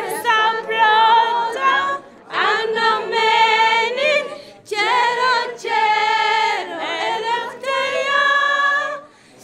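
A group of schoolgirls singing a song together, unaccompanied, in phrases separated by short pauses.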